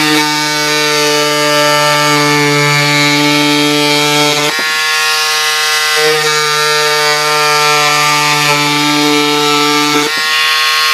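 Pink Power electric cordless scissors running and cutting cardboard: a steady, loud small-motor whine with a buzzing blade, wavering briefly in pitch about halfway through and again near the end.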